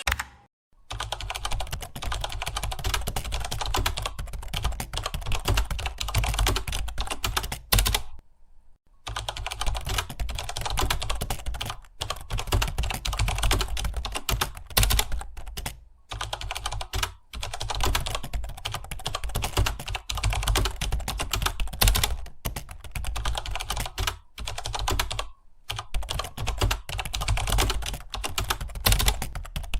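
Fast, continuous typing on a computer keyboard, a dense run of key clicks broken by a few short pauses, the longest about eight seconds in.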